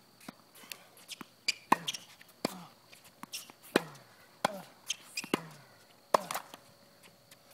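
Tennis ball struck with rackets and bouncing on a hard court in a quick rally: sharp pops about once a second, with two close together early on.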